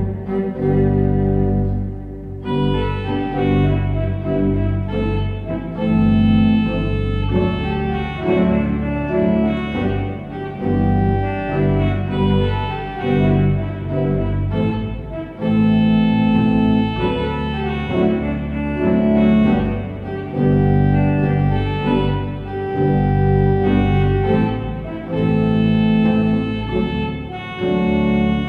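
A bowed cello plays a slow piece. About two seconds in, an organ joins with sustained chords.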